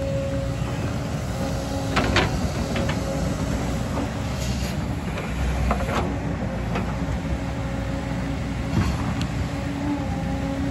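JCB 225 LC excavator's diesel engine running steadily under work, with several sharp knocks, the loudest about two seconds in.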